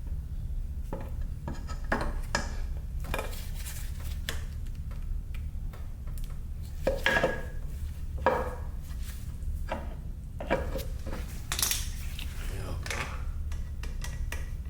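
Irregular metallic clinks and clanks of hand tools and small metal parts being handled and set down, over a steady low hum.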